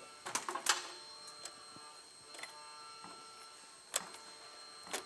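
Scattered sharp metallic clicks and knocks as a snowmobile front shock absorber and its mounting hardware are worked loose and handled: a cluster about half a second in and a sharper knock near 4 s, over a faint steady high-pitched whine.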